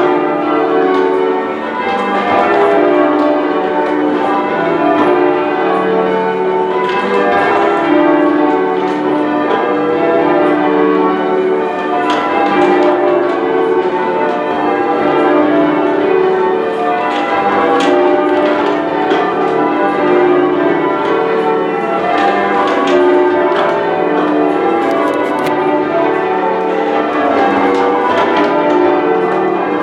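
A ring of ten church bells being change-rung: a continuous run of overlapping bell strokes, each strike ringing on under the next.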